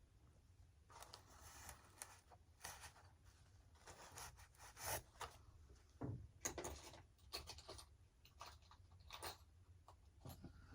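Faint, irregular scraping and rubbing from hands working on an RC model plane: a string of short scratches with quiet gaps between them.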